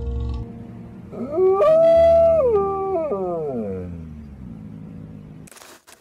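One long animal howl that rises, holds a high note for about a second, then slides down and fades away, over soft background music.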